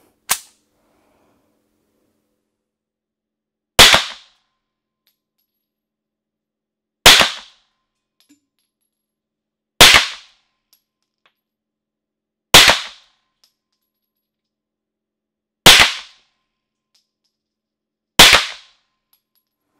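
Luger P08 artillery model, a long-barrelled 9 mm pistol, firing six single aimed shots about three seconds apart. Just before them comes a short sharp metallic click as a feed stoppage is cleared.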